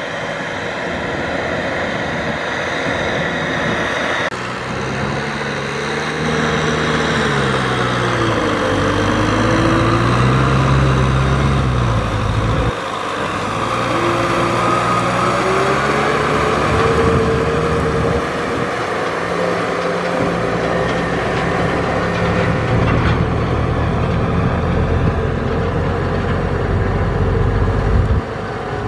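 Kubota M6040SU tractor's four-cylinder diesel engine working under load, its pitch dipping and rising several times as it drags a rotary tiller through flooded mud, with the sloshing of churned mud and water under it. The sound changes abruptly a few times.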